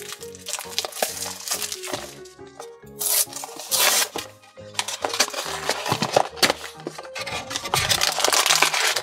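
A cardboard Funko Mystery Minis blind box being torn open and handled: tearing and rustling about three to four seconds in, then steady rustling and crinkling through the rest. Under it, background music with a repeating bass line.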